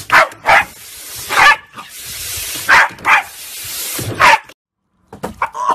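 A small dog barking sharply and repeatedly, six barks, at the spray of a garden hose nozzle, which hisses steadily underneath. The sound cuts off suddenly about four and a half seconds in.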